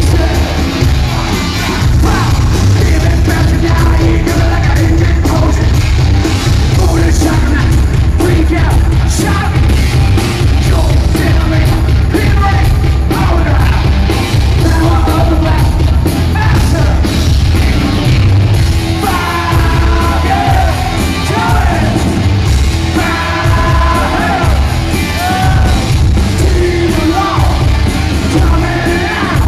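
Live metal band playing loud through an arena PA, with a singer's voice over the band that comes through most clearly in the second half.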